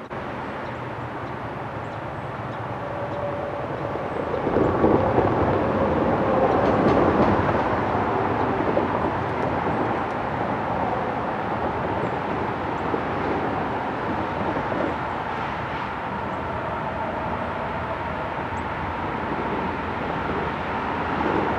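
Eastbound Norfolk Southern freight train passing at track speed, its lead diesel locomotives going by loudest about five seconds in, then a steady roll of freight cars over the rails.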